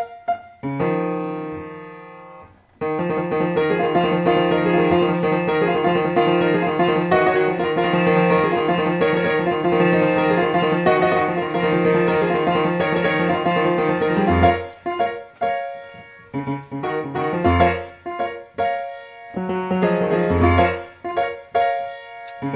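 Solo grand piano: a struck chord left to ring, then from about three seconds in a dense run of rapid notes lasting some eleven seconds, then detached accented chords with gaps between them, punctuated by deep bass notes.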